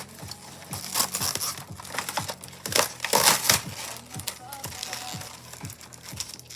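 Plastic toy packaging crinkling and crunching as it is handled and opened, loudest about three seconds in, over background music with a steady beat.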